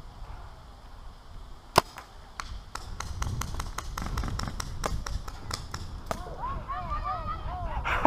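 Magazine-fed paintball markers firing: one sharp shot about two seconds in, then a rapid, irregular string of shots over the next four seconds. A low rumble of movement runs under them, and distant shouting comes in near the end.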